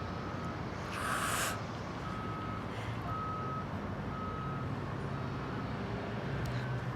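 A vehicle's reversing alarm beeping steadily, about once a second, in single high tones. A short hiss sounds about a second in, and a low engine hum runs underneath.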